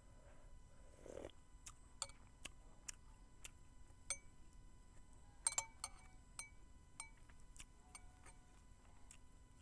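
Metal spoon clinking and scraping against a ceramic soup bowl: a string of light ticks about every half second, with a louder cluster of clinks about halfway through. A short sip from the spoon about a second in.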